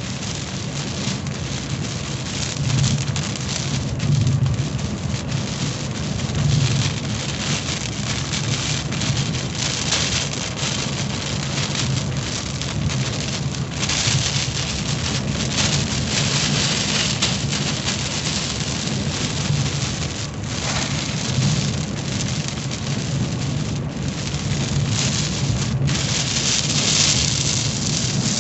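Heavy rain hitting the roof and windshield of a 1985 Cadillac Cimarron, heard from inside the cabin while driving, as a dense, steady hiss. A low drone of tyres on the wet road and the engine runs underneath.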